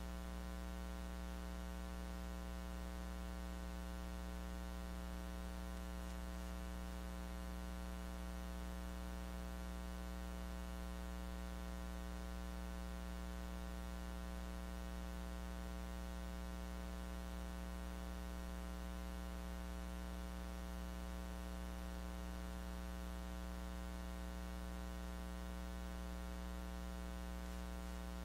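Steady electrical mains hum with a layer of hiss, unchanging throughout and with no voice: the noise of a recording chain whose lecture audio was never captured.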